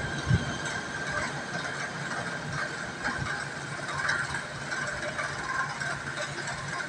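KTM Komuter electric multiple-unit train pulling away down the line. There is one wheel thump over a rail joint just after the start, then a steady hum as it recedes.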